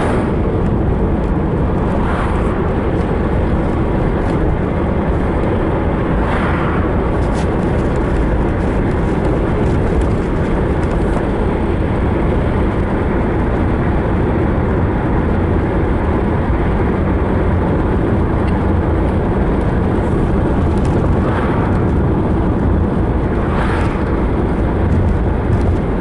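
Steady road and engine noise inside a car cruising on a highway. It swells briefly a few times.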